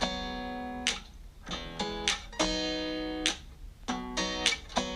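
Instrumental passage of a song: a guitar strummed in a steady rhythm, each chord ringing for most of a second between quick short strokes.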